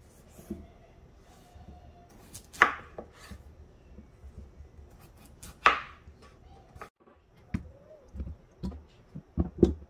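Kitchen knife cutting peeled raw potatoes in half on a bamboo cutting board: two sharp chops of the blade onto the board about three seconds apart, with lighter knocks between. Near the end comes a quick run of short knocks as the potato halves go into a stainless steel pot.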